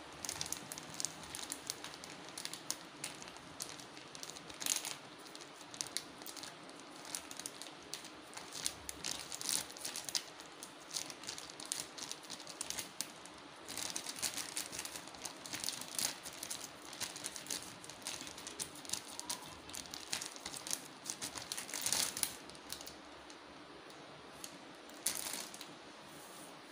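Thin plastic bag worn over the hand as a glove, crinkling irregularly as the hand pats and rolls mashed potato mixture into shape on a steel plate.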